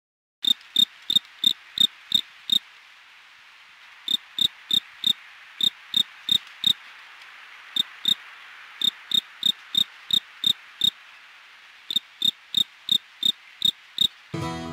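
A cricket chirping steadily, about three chirps a second in runs of seven or eight with short pauses between runs, over a faint steady hiss. Acoustic guitar music comes in right at the end.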